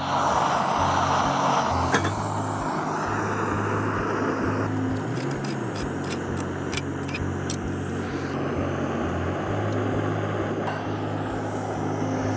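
Small screw-on canister gas stove turned on, its gas hissing suddenly at once and then burning as a steady hiss. A sharp click comes about two seconds in, and a few lighter clicks near the middle.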